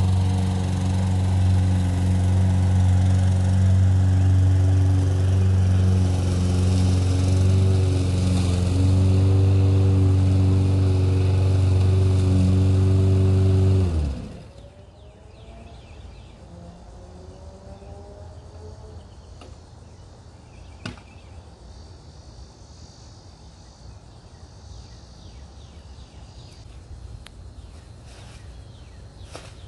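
Toro Recycler 22-inch self-propelled lawn mower's 150cc single-cylinder engine running steadily, then shut off about 14 seconds in, its pitch falling as it spins down. After that there is only a faint outdoor background with a few light clicks.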